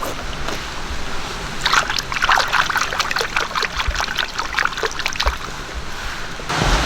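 Rain falling steadily, with a dense patter of drips and small splashes that starts about two seconds in and stops shortly before the end.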